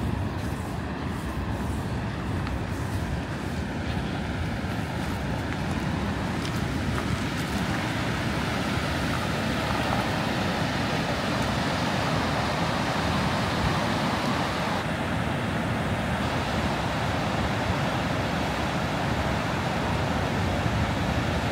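Steady roar of a large waterfall (Gullfoss) mixed with strong wind buffeting the microphone, growing slightly louder over the stretch.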